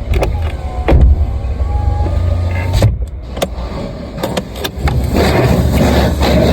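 Inside a car cabin: a steady low rumble, with a power window motor whirring for about two seconds before it stops, and scattered clicks and knocks. A louder rushing hiss sets in about five seconds in.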